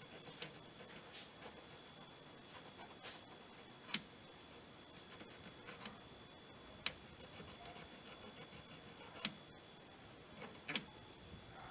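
Scattered light clicks and short scratchy scrapes of hand work on a washing-machine part, with one sharper click about halfway through.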